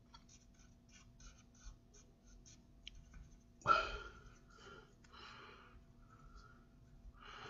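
Faint scratching of a pen on paper as hand-lettered words are gone over again and thickened, in many short quick strokes, with one louder short noise a little past halfway.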